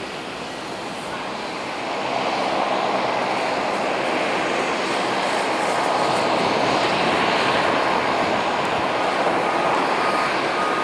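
Bombardier DHC8-Q400's twin PW150A turboprop engines and propellers running on the runway, a steady droning hum with a hiss. The engines get clearly louder about two seconds in as power comes up, then hold at the higher level.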